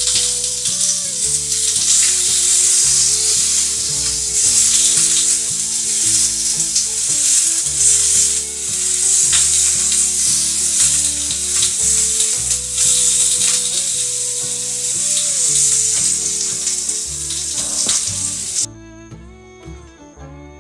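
Food sizzling and crackling in a frying pan, as in stir-frying, over background music with a plodding bass line. The sizzle cuts off suddenly near the end, leaving only the music.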